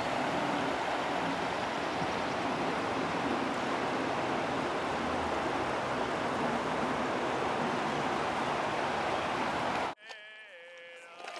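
Shallow stream rushing over rocks, a steady roar of running water that cuts off abruptly near the end. Right after, a person's drawn-out vocal call.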